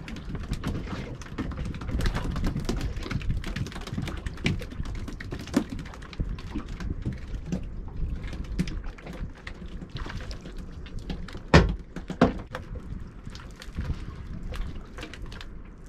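Fishing reel being cranked, a rapid run of small clicks and ticks, as a hooked string of mackerel on feathers is wound in, over a low rumble. Two sharp knocks stand out about eleven and a half and twelve seconds in.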